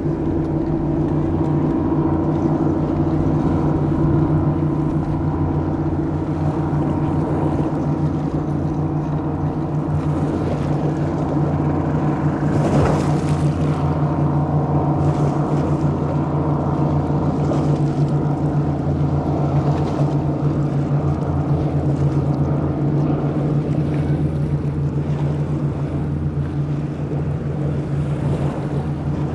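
Offshore performance powerboat running at high speed: a steady, unchanging engine drone over the rushing hiss of water from its hull and wake.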